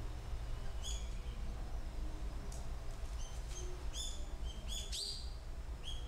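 Birds calling: a string of short, high, flat chirps, about eight of them, coming irregularly and closest together in the second half, over a low steady rumble.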